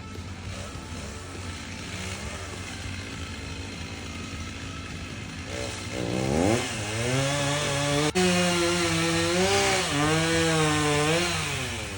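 Chainsaw motor revving up sharply about six seconds in and running at high speed with a wavering pitch, then easing off near the end. Before that there is a steady low engine hum.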